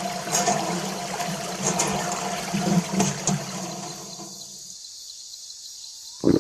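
Water running and trickling over a steady low hum, stopping about four and a half seconds in; a loud sudden sound comes right at the end.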